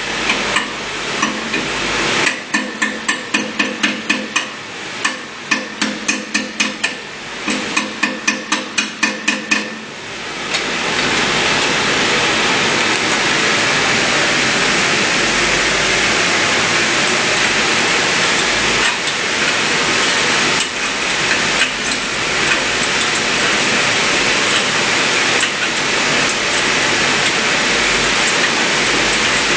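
Hammer blows on metal in quick runs of about four strikes a second, each blow ringing, for the first ten seconds. Then a steady rushing noise takes over.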